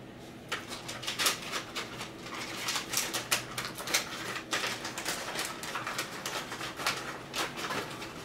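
Paper and plastic mail packaging crinkling and rustling as it is torn and pulled open by hand, in quick irregular crackles.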